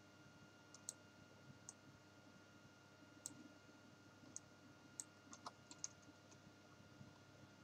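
Faint, scattered clicks of a computer mouse and keyboard, with a quicker run of clicks a little past the middle, over quiet room tone with a faint steady hum.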